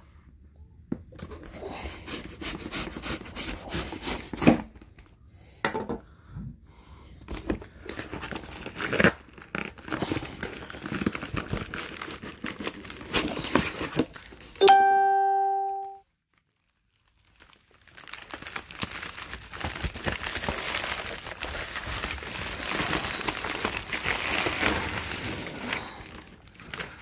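Cardboard shipping box being opened, with paper and plastic packing crinkled, rustled and torn. About halfway through, a single bell-like chime rings out and fades, followed by a couple of seconds of complete silence.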